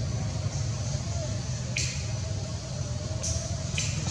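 Outdoor background noise: a steady low rumble, broken by three short, sharp hisses about two, three and four seconds in.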